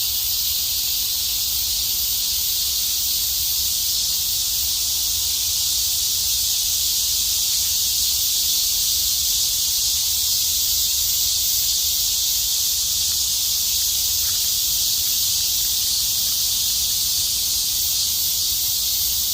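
A steady, dense chorus of summer cicadas: a high, unbroken hiss, with a faint low rumble underneath.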